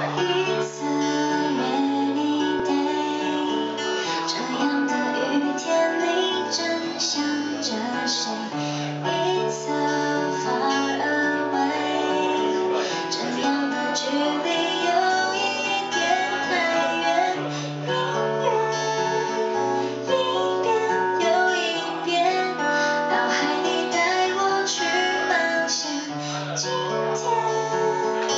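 A woman singing live to her own acoustic guitar, strumming chords under the voice.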